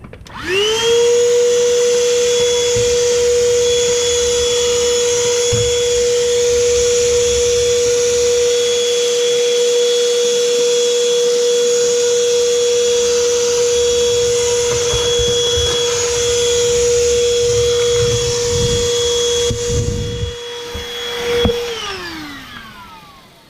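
Vacuum cleaner switching on and running with a steady whine as it sucks dust out of a wall outlet box, with a few knocks near the end. It is switched off about 21 seconds in and winds down with a falling whine.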